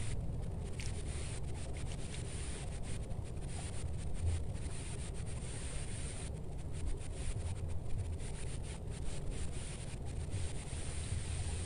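Wind buffeting the microphone: an uneven low rumble with a rubbing, rustling hiss over it.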